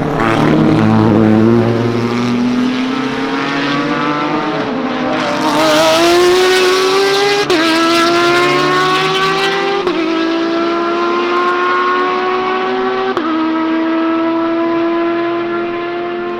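Race car engine accelerating hard, its pitch climbing through each gear with three quick upshifts, about seven and a half, ten and thirteen seconds in, each dropping the pitch before it climbs again.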